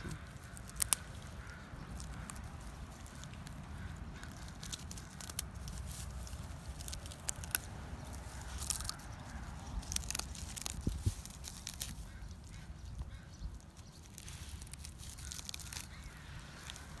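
Whippet gnawing on something hard and crunchy held between its paws, with irregular crunches and clicks of its teeth.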